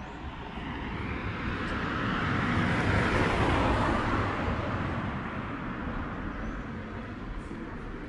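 A motor vehicle driving past on the street, its noise swelling to a peak about three seconds in and then fading away.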